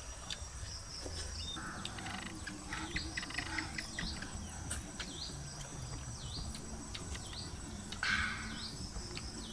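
A bird giving a short falling chirp over and over, roughly once a second, over a steady high-pitched insect drone, with scattered light clicks and knocks.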